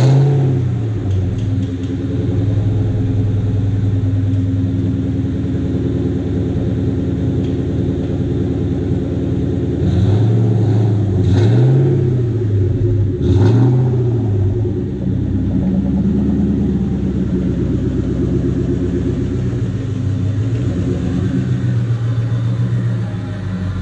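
1999 Ford Mustang SVT Cobra's 4.6-litre DOHC V8 just started, its idle flaring high and settling down, then running steadily with a few quick throttle blips about ten and thirteen seconds in and a smaller rise in revs later on.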